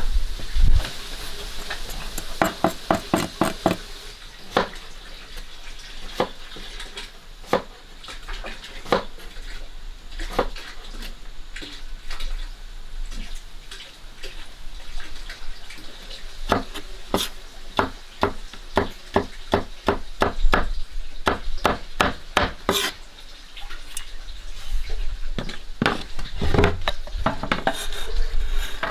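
Kitchen utensils clinking and knocking against bowls and pans, with quick runs of rapid taps about 2 to 4 seconds in and again from about 16 to 23 seconds in.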